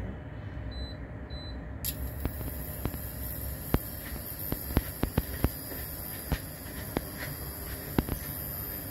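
A stainless steel frying pan heating on the stove with a steady hum. From about two seconds in come scattered, irregular sharp ticks and pops as the oil and droplets in the pan heat up.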